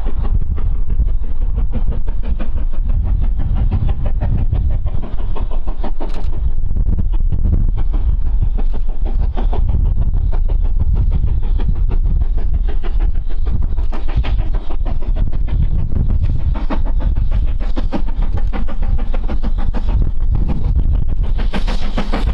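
BR Standard Class 4MT 4-6-0 steam locomotive 75014 Braveheart working a train under steam, its rapid exhaust beats running steadily with a deep rumble underneath. The beats grow louder and sharper near the end as the engine draws close.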